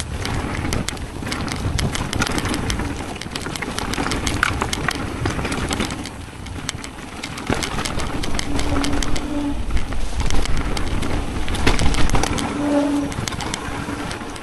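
Mountain bike rattling down a rough dirt trail: tyres crunching over gravel and rock, with a rapid clatter of chain and frame over the bumps and wind rumble on the microphone. Twice, partway through and near the end, a short low hum sounds for about a second.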